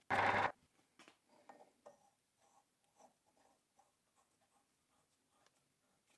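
A short loud burst of lathe cutting noise that stops about half a second in, then faint scattered clicks and light scraping as a keyless drill chuck is screwed by hand onto the freshly cut thread of the arbor to test the fit.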